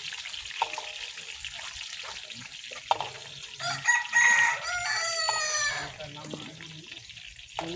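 A rooster crows once, a long call of about two seconds in the middle, over a steady hiss of frying from a wok on a wood fire. Two sharp knocks come in the first three seconds.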